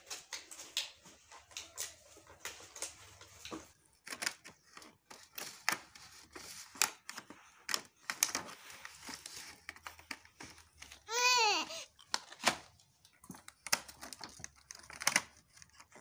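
Clear plastic packaging of a toy doctor kit crinkling, with many small clicks and taps of hard plastic as it is handled and poked open. A child's short call, rising then falling in pitch, about eleven seconds in.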